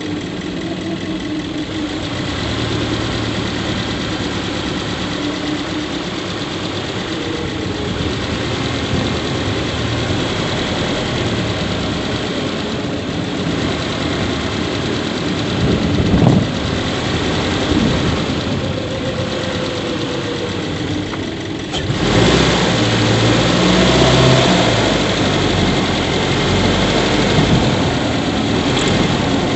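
Subaru Levorg 1.6GT-S's 1.6-litre turbocharged flat-four running steadily at idle, getting louder about 22 seconds in. It is recorded for an abnormal squeaky 'kyuri' noise from the engine bay that the owner says grows louder as the engine keeps running.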